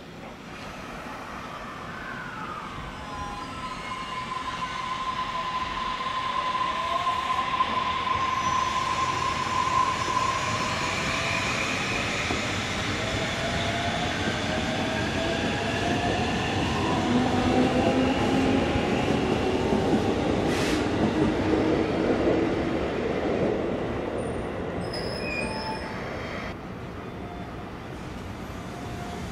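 Freight train of an EF65 electric locomotive and empty oil tank wagons rolling slowly past, its wheels squealing in several shifting, gliding tones over the rumble of the wagons. The rolling swells, is loudest a little past the middle, and eases near the end, with one sharp click about twenty seconds in.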